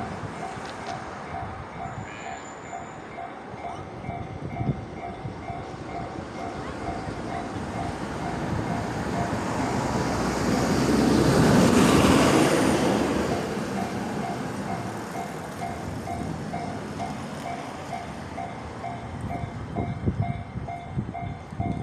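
Japanese level-crossing warning bell ringing steadily in an even, repeating ding-ding, while a train runs through the crossing: its rumble builds to a peak about halfway through and then fades away.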